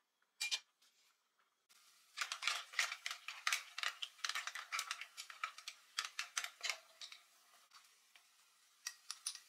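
Clam shells clattering against each other and an enamelled cast-iron pan as they are stirred with a wooden spatula: a quick run of clicks and clacks for about five seconds, thinning to a few scattered clicks near the end. One short sharp clack comes about half a second in.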